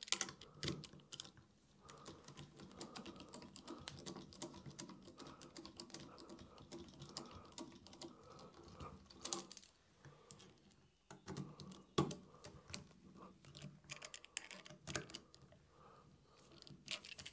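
Hand screwdriver tightening the bolts that fasten a stepper motor to its mounting spacers: quiet, scattered clicks and small metal ticks as the tip seats in the screw heads and the bolts turn, with a few sharper clicks about nine, twelve and fifteen seconds in.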